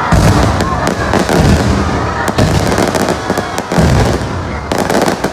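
Aerial fireworks going off in quick succession: loud bangs and crackling bursts, one on top of another.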